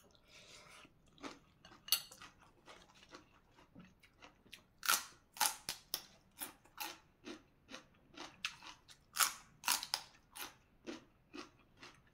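Close-up crunchy chewing of fresh green vegetable stems, one crisp crunch after another at about two a second, soft at first and louder from about five seconds in.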